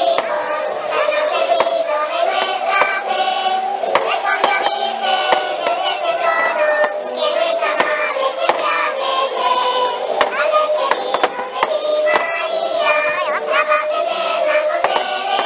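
A crowd singing together in unison, long held notes over a steady, dense sound, with scattered sharp hand claps.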